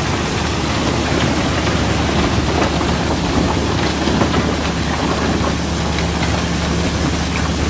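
River rock and crushed coal sliding and tumbling off a barge's cargo pile in a continuous stream, a dense, steady rattle of many stones. A steady low hum runs underneath.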